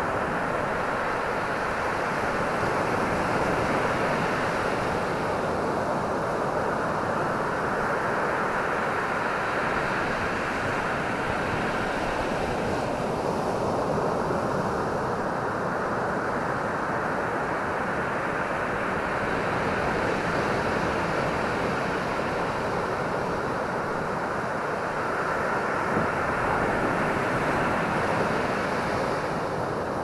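Atlantic surf breaking and washing up a sandy beach: a steady rush of water that swells every several seconds as each wave breaks.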